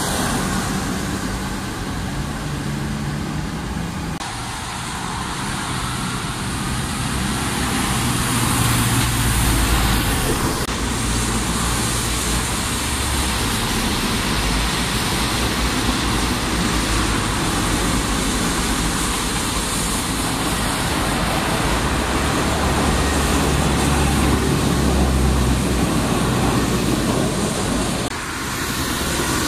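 Road traffic running on a wet road: a steady hiss of tyres on wet tarmac over the low hum of car and bus engines.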